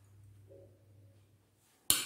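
A steel ladle clinks once, sharply, against metal near the end as it is done pouring ghee into a small iron kadai, with a short ring after it. Before that, only faint soft sounds of the pouring.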